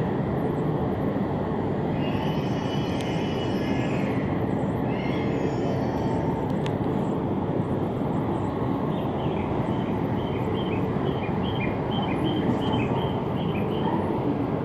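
Steady rushing hum of an E5 series Shinkansen standing at the platform, its onboard fans and equipment running. About nine seconds in, a quick run of short high-pitched tones at two alternating pitches sounds for several seconds.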